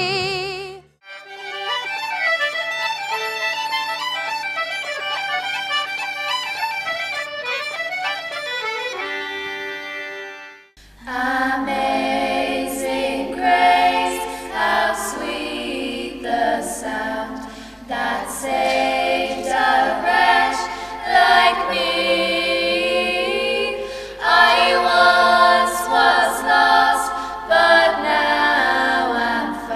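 Five teenage girls singing a song together in harmony, unaccompanied, after an opening passage of about ten seconds of sustained notes without words. The end of a solo sung song is heard in the first second.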